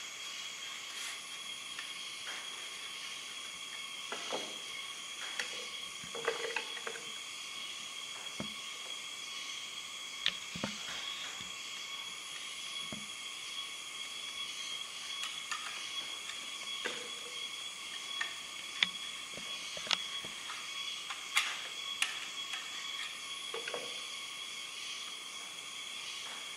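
Scattered light knocks, clicks and scrapes as a wooden board and small tools are handled, over a steady high hiss with a few constant high tones.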